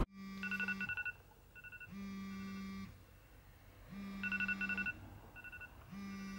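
Smartphone alarm going off: a short electronic phrase, a low tone under quick high beeps, repeating about every two seconds.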